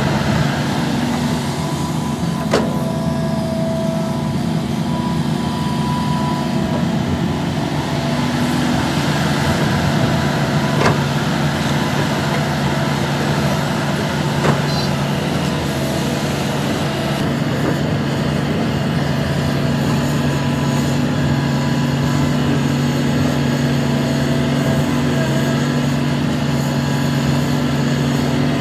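Hitachi ZAXIS 350H excavator's diesel engine running steadily under working load, with three sharp knocks spread through.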